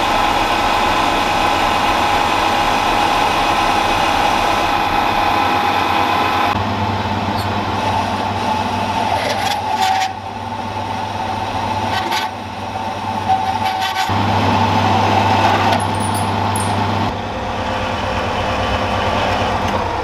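Metal lathe running with a turning tool cutting the end of a metal shaft: a steady machine hum with many even tones. The running sound changes abruptly several times, about a third of the way in and again later, with a few short clicks.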